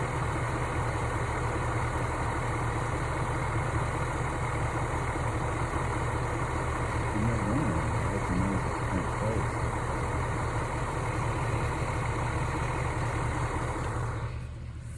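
1948 Thomas bus engine running at a steady idle after a hard start. The sound falls away sharply about a second before the end.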